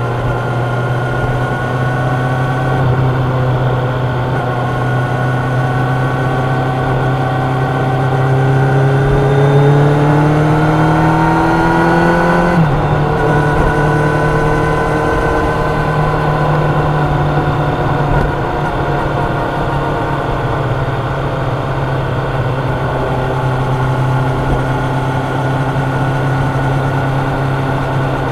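Kawasaki Ninja 1000's inline-four engine and exhaust running at a steady cruise. The note climbs for a few seconds about a third of the way in, drops sharply at an upshift a little before halfway, then holds steady again.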